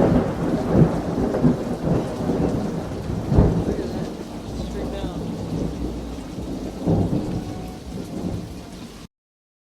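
Thunder rumbling and fading over steady heavy rain, with fresh louder peals about three and a half seconds in and again about seven seconds in. The sound cuts off suddenly just before the end.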